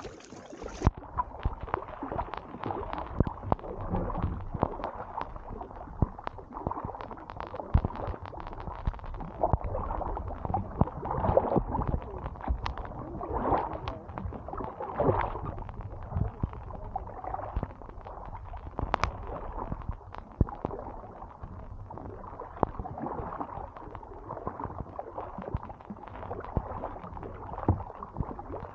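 Water lapping and gurgling against a kayak hull and the camera, heard muffled as through a wet waterproof housing, with scattered small knocks and splashes from paddling.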